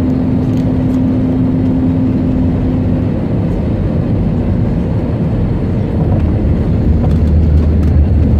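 Airbus A320 landing, heard inside the cabin: steady engine and rushing-air noise with a constant hum that weakens about three seconds in, then a deeper rumble that grows louder from about six seconds in.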